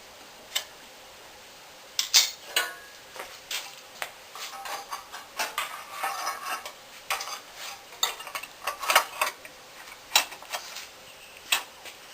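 Irregular clinks and clatter of metal tools and engine parts being picked up, set down and worked with, several sharp knocks loudest about two seconds in and again near nine seconds.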